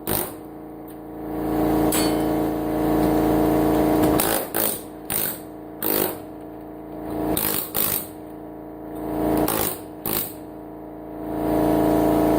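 Pneumatic air hammer (air chisel) run in repeated trigger pulls against electronic circuit boards, chiseling off components. Short sharp blasts alternate with longer runs of a few seconds, and the longest run begins near the end.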